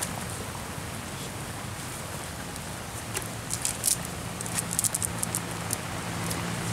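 A wet cast net being handled on grass as fish are picked out of it: scattered sharp clicks and rustles, coming in quick clusters after about three seconds in. A low steady hum sets in and grows about four seconds in.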